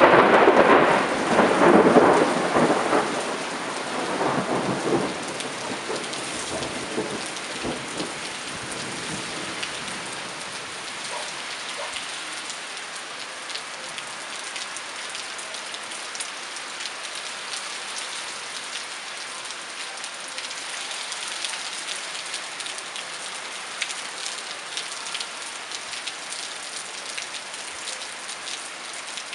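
Heavy rain pouring steadily, opening with a loud clap of thunder that rumbles and fades over about five seconds. Scattered sharp ticks of drops hitting nearby surfaces run through the steady hiss.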